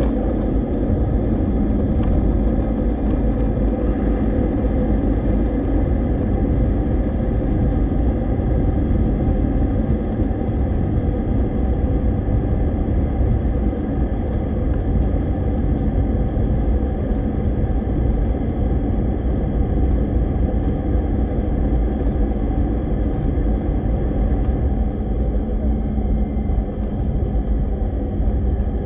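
Steady rumble of an airliner's jet engines and rushing air heard inside the passenger cabin, unchanging throughout, with a few faint steady tones through it.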